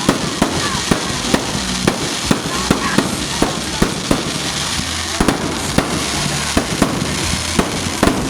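Fireworks going off in a rapid, irregular barrage: sharp bangs and pops, several a second, over a continuous noisy rumble of crackling and distant blasts.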